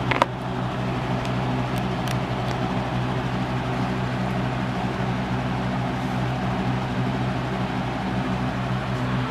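Steady low mechanical hum, like a running fan, under light plastic clicks: one sharp click just after the start and a couple of faint ones about two seconds in, as an action figure is handled and set on a plastic toy throne.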